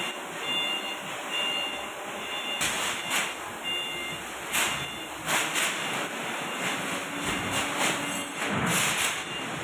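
Forklift warning alarm beeping on and off for the first few seconds over a steady machine hum, with several short bursts of rustling as plastic wrap is handled on a crated machine.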